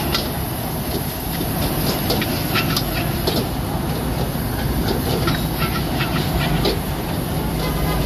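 Metal ladle clanking and scraping against a wok as rice is stir-fried, in short irregular strikes over a steady rushing background.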